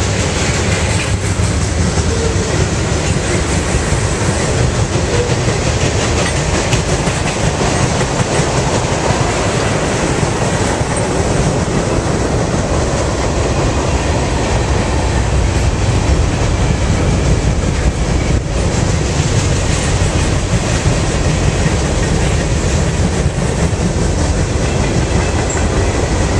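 A mixed freight train's cars (tank cars, covered hoppers, boxcars) rolling past at speed: a loud, steady rumble with the wheels clattering on the rails.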